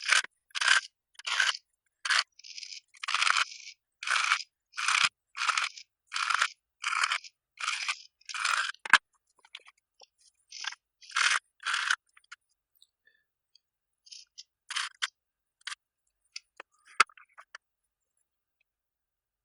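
Used typewriter ribbon being pulled out of its cartridge in short strokes, about two a second for the first twelve seconds, then a few scattered pulls and small ticks.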